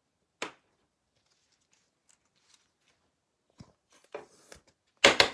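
Mosaic football trading cards being handled: a single soft tick about half a second in, faint rustling a few seconds later, and a louder quick clatter of cards near the end.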